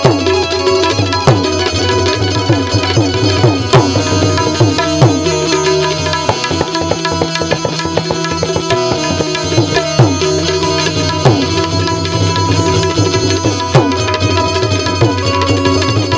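Instrumental devotional music: tabla strokes over sustained held tones, some of the bass drum strokes sliding down in pitch.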